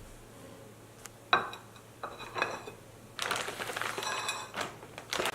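Kitchenware clinking: one sharp ringing clink about a second in, then a couple of lighter clinks, followed by a crinkling rustle from about three seconds in.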